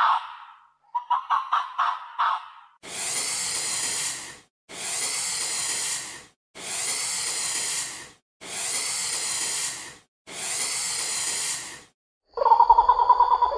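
An animal hissing: five long, even hisses, one about every two seconds. They follow a short run of quick, pulsed calls, and a louder pitched call begins near the end.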